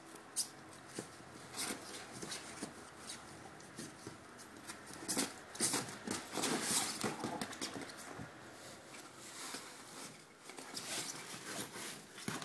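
A Doberman and a Prague ratter scuffling together on bedding: fabric rustling with scattered clicks and knocks of paws and bodies, busiest about five to seven seconds in.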